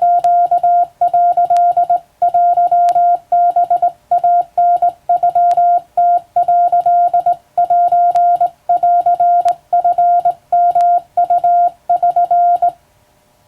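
Hand-keyed Morse code: a single steady mid-pitched tone switched on and off in dots and dashes, with short gaps between characters, stopping near the end.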